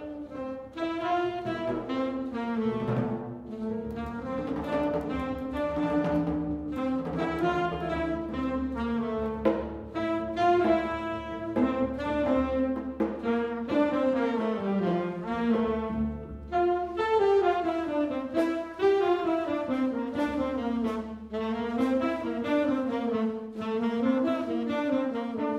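Small jazz ensemble playing: trumpet and saxophones carry melodic lines together over a rhythm section of piano, double bass and drums.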